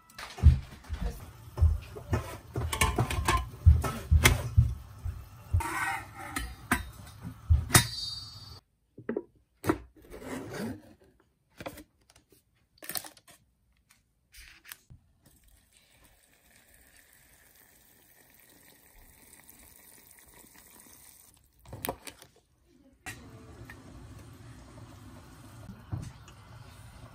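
Kitchen handling sounds: irregular taps and clatter as dumplings are set onto a stainless steel steamer tray, then sparser clicks and a faint steady hiss.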